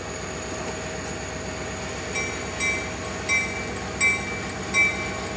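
CSX diesel locomotives idling with a steady engine rumble. About two seconds in, the locomotive bell starts ringing, about one clang every 0.7 s, as the train is cleared to move.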